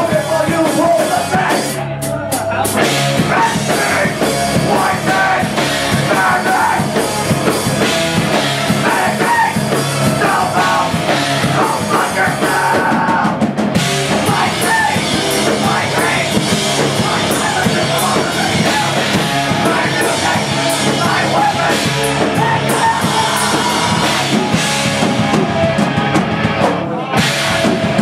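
Live rock band playing loudly: drum kit, electric guitar, bass and keyboards, with a lead vocal sung into a microphone.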